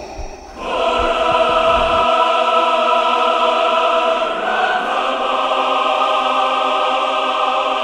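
Music: a choir holding one long sustained chord, which swells in about half a second in and fades away near the end.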